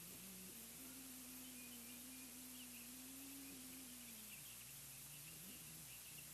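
Near silence: steady outdoor microphone hiss, with a faint low hum that drifts slowly in pitch and fades out about four seconds in, and faint distant bird chirps.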